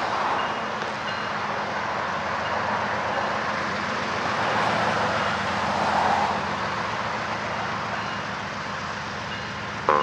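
Diesel freight locomotives working hard to get a heavy 120-car train moving, a steady engine drone under load that swells a little about six seconds in.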